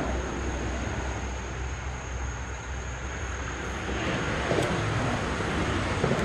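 Steady low rumble of vehicle traffic, growing a little louder past the middle, with two faint clicks, one past the middle and one near the end.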